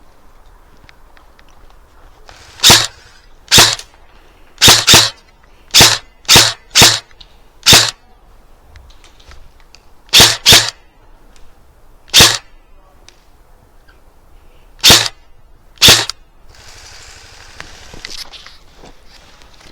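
Airsoft gun firing single shots, about thirteen sharp cracks at an uneven pace, some in quick pairs. A softer hiss follows near the end.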